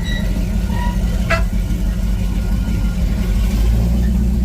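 Car engine running with a steady low rumble. A brief, sharp high-pitched chirp comes about a second in.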